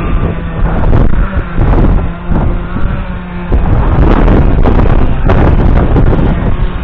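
Strong gusty wind buffeting the microphone in loud irregular swells, over a steady low engine hum that drops out for a few seconds in the middle.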